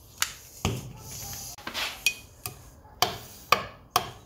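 Metal stirrer clinking against the sides of a glass measuring cup while liquid soft-bait plastic with glitter flake is mixed: about eight sharp, irregular clinks.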